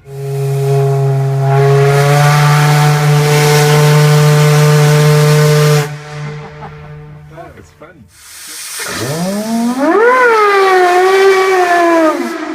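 Steam whistle of the 1922 steam tug SS Master blowing two long, loud blasts with a rush of hissing steam: the first a steady note of about six seconds, the second sliding up in pitch as it starts and wavering before it cuts off.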